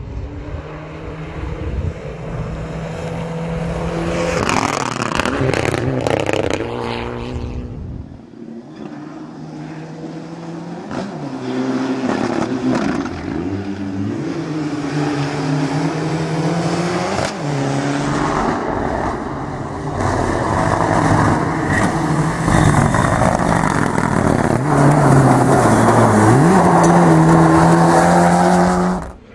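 Turbocharged four-cylinder Mitsubishi Lancer Evolution Group N rally car driven hard on gravel: the engine note climbs and drops sharply again and again through the gear changes, over the rough hiss and crunch of gravel under the tyres. The sound cuts off suddenly near the end.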